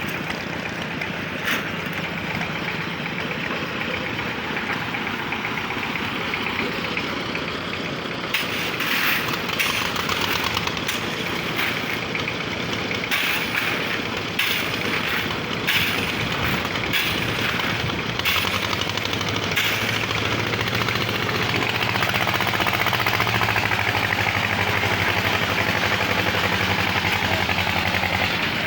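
Construction-site concrete mixing machine running steadily as it mixes a load of crushed stone, sand and cement, with a run of sharp clattering knocks from about eight seconds in to about twenty seconds.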